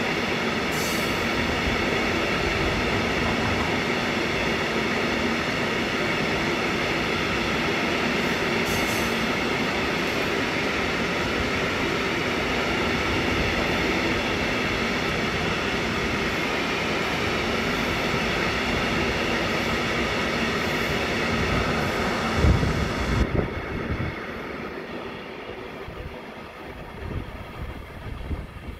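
Freight train of open coal wagons rolling past at speed: a steady loud rumble of wheels on rail with ringing tones. A few heavy knocks come about three-quarters of the way through, then the sound drops off sharply and fades as the train draws away.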